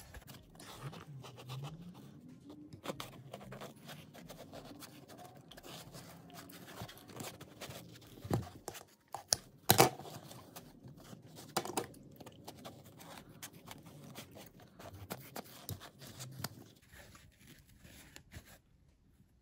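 Quiet handling noise as a block of craft foam is rubbed and turned in the hands: soft scrapes and rustles, with a few sharp clicks in the middle.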